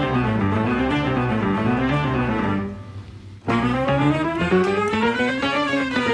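Instrumental music with a moving melody. It drops out briefly about three seconds in, then comes back with a line that slides up and back down.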